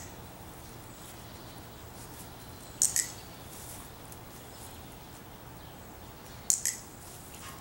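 Two short, sharp double clicks, about four seconds apart: a dog trainer's marker sound telling the dog she got it right.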